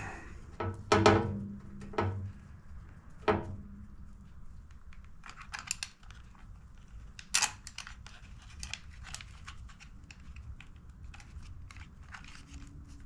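Knocks and clicks of hard plastic as an air cleaner housing is handled and fitted against the carburetor of a Honda GCV160 engine: a few sharp knocks in the first few seconds, another about seven seconds in, then lighter scattered clicking.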